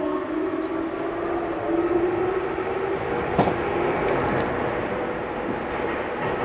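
Onboard running sound in a Tokyu 9000 series motor car: the VVVF inverter and traction motor whine rises in pitch as the train accelerates, then levels off after about two seconds over a steady wheel-on-rail rumble. A single sharp click comes about three and a half seconds in.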